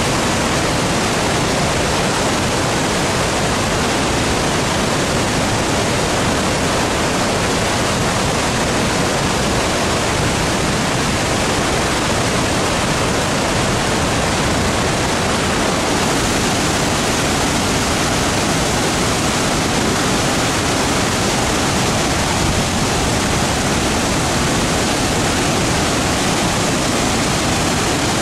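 Victoria Falls on the Zambezi: a huge curtain of water plunging into the gorge, a loud, steady, unbroken rush of falling water.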